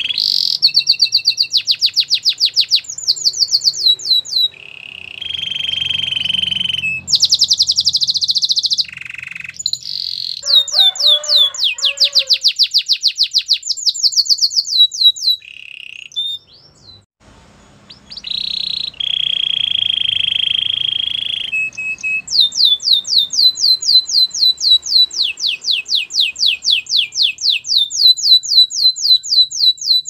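A domestic canary singing: long trills of quickly repeated notes, several a second, alternating with held buzzy notes. There is a short pause a little past halfway, then a long, even trill to the end.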